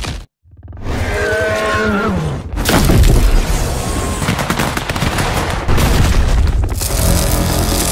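Layered cartoon sound effects: after a short gap, a rising rush with a few brief gliding whines, then a long run of booming crashes and rumbling, crashing rock.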